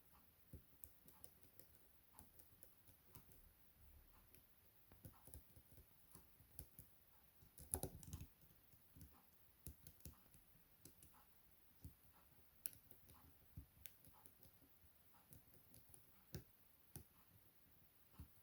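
Faint, irregular small clicks and taps of a lock pick and tension wrench working the rotating pins of a Chubb M3 pin-tumbler lock, with a louder burst of rattling clicks about eight seconds in.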